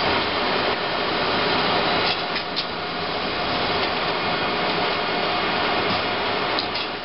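Steady machine noise from CNC lathes and their robot loading cell at work, with a few faint clicks about two and a half seconds in and again near the end.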